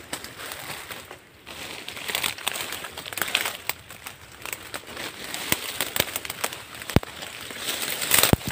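Footsteps pushing through dense undergrowth: leaves and grass rustling and dry twigs crackling, with two sharp snaps in the last couple of seconds.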